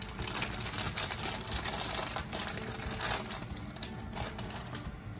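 Plastic wrapping of a noodle packet crinkling and crackling as fingers pick at it, trying to tear it open; the packet resists opening.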